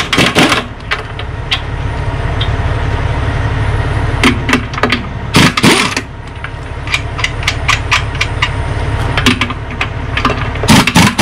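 Pneumatic 1/2-inch impact gun hammering in short bursts, four of them with a few single taps between, as it bumps the wedge nuts of a Dayton spoke wheel loose one by one; a wedge pops loose under the wheel's pressure. A steady low rumble runs underneath.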